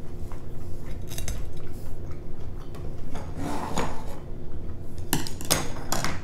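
Light tableware clatter: wooden sticks and chopsticks knocking against a serving tray, with a brief rustling scrape in the middle and a quick run of sharp clicks near the end.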